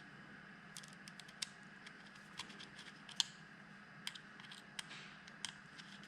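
Irregular small clicks and scrapes of a screwdriver and screws being fitted to the blade of a Wahl detailer hair trimmer, a dozen or so light taps spread unevenly.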